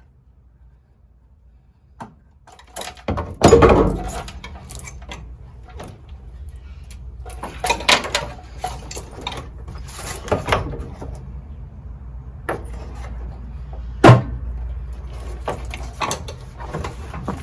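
Knocks, clunks and rustling as parts are handled and pulled loose inside a car's stripped interior, with a loud thump about three and a half seconds in and a sharp knock about fourteen seconds in.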